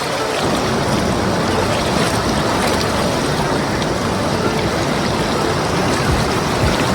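Steady, loud rush of falling water from a waterfall, an even unbroken roar with no rhythm or pitch.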